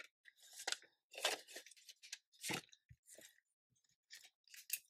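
Paper banknotes and a cash envelope being handled as a bill is stuffed in: a string of short, crisp paper rustles.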